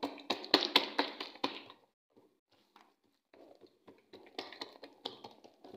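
Hand patting and pressing a folded square of msemen dough flat, a quick series of soft slaps and taps, about six a second, over the first two seconds. After a quieter stretch, another short run of taps comes near the end.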